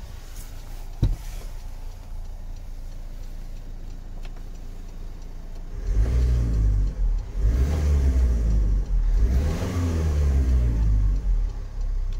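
Mercedes-Benz Vito 111 diesel engine idling steadily, with a single click about a second in, then revved three times from about halfway, the pitch rising and falling each time.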